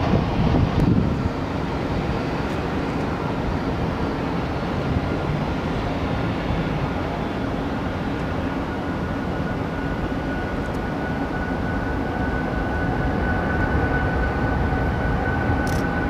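Airbus A380 jet engines running, a steady rumble and hiss with a whine that rises slightly in pitch and grows louder through the second half. Wind buffets the microphone in the first second.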